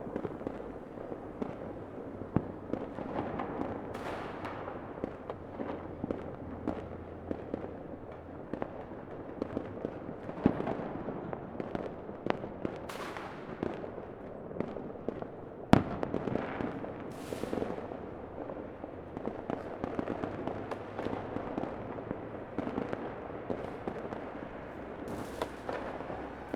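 Fireworks going off continuously in many overlapping pops and crackles, with a sharper bang about sixteen seconds in and a few brief hissing bursts.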